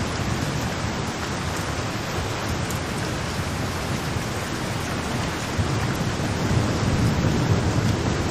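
Steady rain falling, with low rolling thunder rumbling underneath that swells about halfway through.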